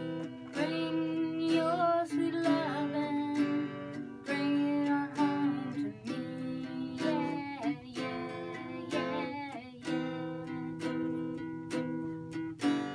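Background music: a song with plucked, strummed acoustic guitar and a singing voice.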